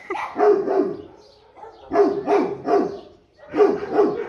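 A dog barking in three quick runs of about three barks each, every bark dropping in pitch, with short pauses between the runs.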